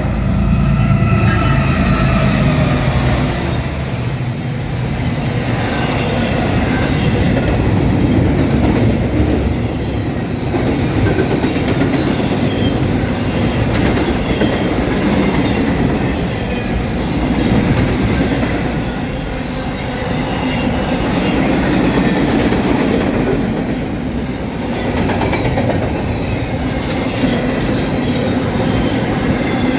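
Norfolk Southern freight train rolling past, led by two diesel locomotives: the locomotive horn dies away in the first second or two, then the steady rumble and clatter of the train on the rails, with some wheel squeal.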